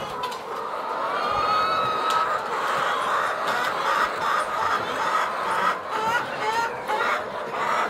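A flock of laying hens clucking and calling, many short calls overlapping with no pause.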